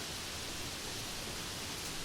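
Steady, even hiss of rain falling, with no single drops or thunder standing out.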